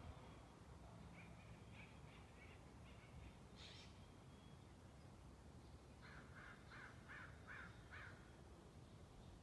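Faint forest ambience: a distant bird gives a few scattered calls, then a quick run of about six harsh, caw-like calls, roughly three a second, past the middle. Low steady background noise runs underneath.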